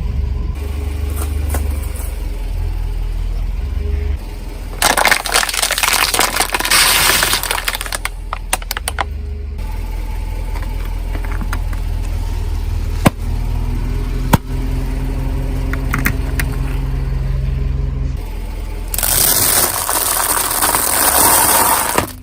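Car engine running with a steady low drone while a tyre rolls over and crushes crunchy objects: two long bouts of crackling and crunching, about five seconds in and near the end, with two sharp pops in between.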